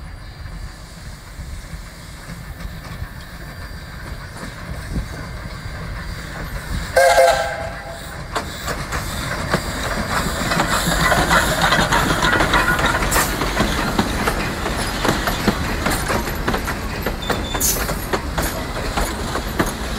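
Vulcan Iron Works 0-6-0 saddle-tank steam locomotive approaching and passing, with one short whistle toot about seven seconds in. The train then grows louder as it goes by, and its passenger coaches roll past with wheels clicking over the rail joints.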